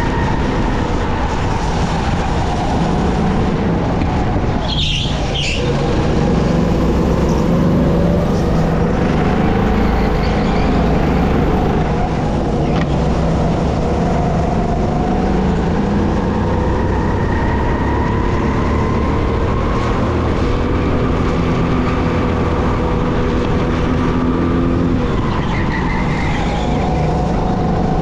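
SR5 200cc go-kart engine running hard around a track, its pitch rising under acceleration and dropping as it slows, over and over.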